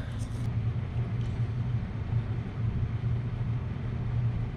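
Air handler blower running steadily with a low hum, the first stage of electric auxiliary heat on, while the second heat-strip stage has not yet been switched in by the sequencer.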